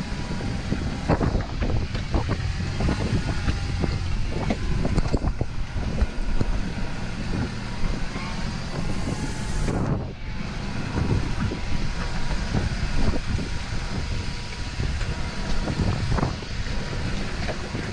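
Land Rover Defender 110 driving on a wet, icy, stony track: engine running and tyres churning through gravel and slush, throwing up mud, with wind buffeting the microphone.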